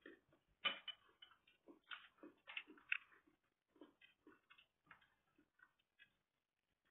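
Faint, irregular small clicks and taps from eating at a table: cutlery and food being handled, with a couple of sharper clicks about a second in and about three seconds in.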